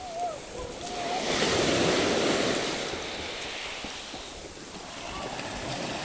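Black Sea surf washing onto a fine-pebble beach: one wave swells to its loudest about two seconds in and then ebbs away, with some wind on the microphone.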